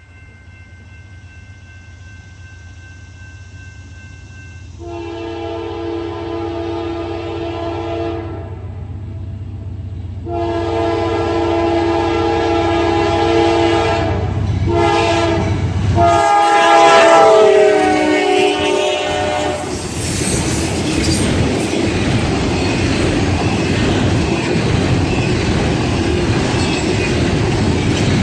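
Approaching locomotive sounding its multi-note air horn in the grade-crossing pattern: long, long, short, long. The horn's pitch drops as it passes, and the rumble and rattle of railcars rolling by takes over for the rest.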